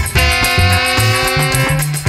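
Instrumental background music: a held chord over a pulsing bass line with a steady beat.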